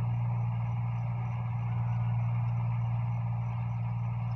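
Tractor engine running at a steady drone as it ploughs the field.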